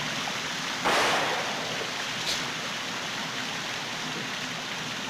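Water fountains splashing with a steady hiss, with a louder surge of spray about a second in that slowly dies back.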